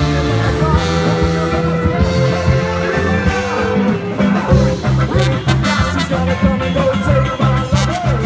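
Upbeat band music with a steady beat, bass line and a ska-like feel.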